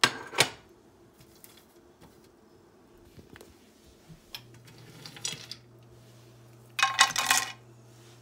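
Metal kitchenware clinking: a spoon and steel pot or containers knocking together as whole spices are added to the pot. There are two sharp clinks at the start, a few light ticks, and a louder clatter about seven seconds in.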